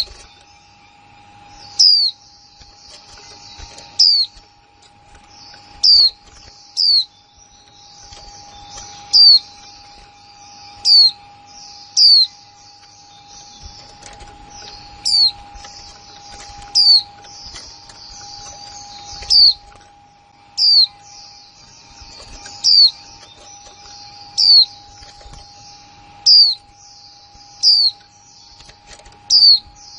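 Female white-eye giving its sharp 'kick' call over and over, each a short note falling in pitch, about one every one to two seconds, over steady high twittering chatter.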